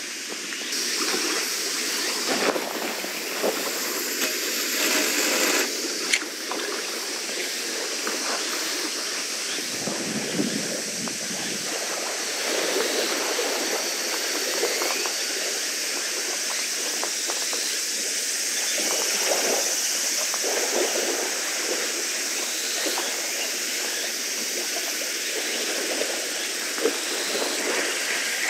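Steady rushing noise of water along the shore, with a few brief small knocks from handling the gear.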